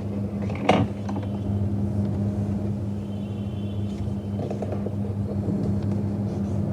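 A square sheet of paper crackling and rustling as its corners are folded and creased, with a sharp crackle just under a second in, over a steady low hum.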